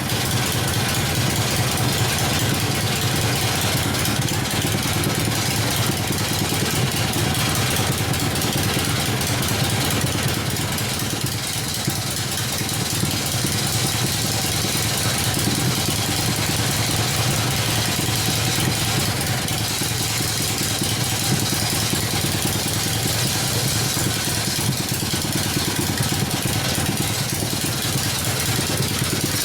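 1972 Harley-Davidson Ironhead Sportster V-twin engine, freshly rebuilt, idling steadily.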